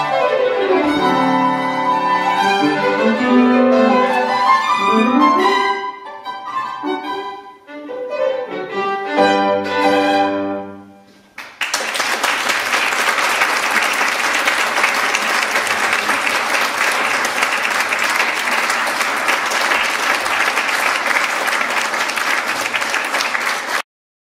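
Violin and piano playing the closing bars of a classical sonata movement, ending on final chords about eleven seconds in. Audience applause follows at once, steady for about twelve seconds, then cuts off abruptly.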